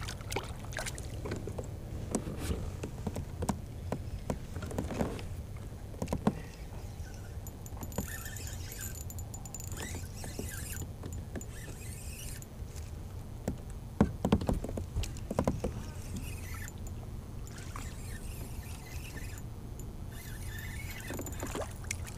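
Knocks and rattles of fishing gear against a plastic kayak's hull over a steady low rumble, with stretches of a spinning reel being wound in as a crankbait is retrieved. The sharpest knocks come about 14 s in.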